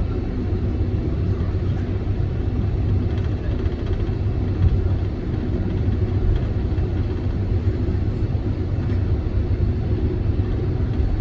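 Steady low rumble of a Boeing 747-400 taxiing after landing, heard inside the passenger cabin.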